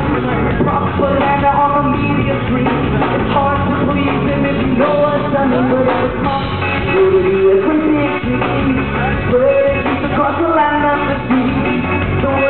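Reggae-rock band playing loud live music on electric guitars and drums, with the lead singer singing into a microphone.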